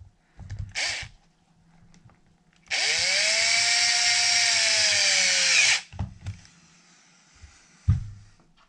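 Cordless drill/driver running a bead lock bolt into a 1/5-scale RC wheel: a short spin about a second in, then a steady whine for about three seconds whose pitch sags slightly before it stops. A few clunks follow, the loudest near the end.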